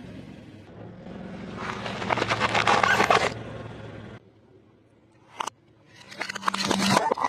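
A car rolling over crunchy objects and crushing them, with dense crackling and snapping over the low hum of the engine. It goes quiet for a moment, with one short snap, then the crackling starts again near the end.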